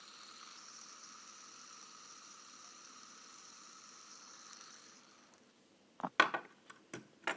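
Fidget spinner whirring on its ball bearing as it spins, a faint steady hiss with a few held tones that fades out after about five seconds. Several sharp plastic clicks follow near the end as it is handled.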